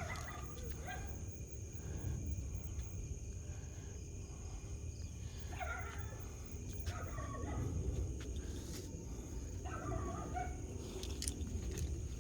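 Scattered short animal calls, about half a dozen over the stretch, over a steady high insect trill.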